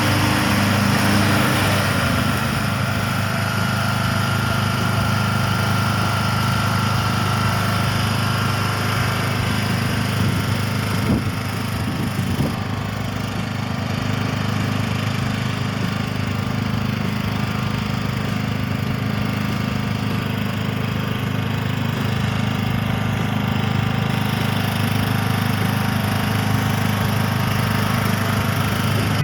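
Kohler Courage 19 single-cylinder engine of a Cub Cadet LT 1042 riding lawn mower running steadily; its note shifts slightly about two seconds in, then holds.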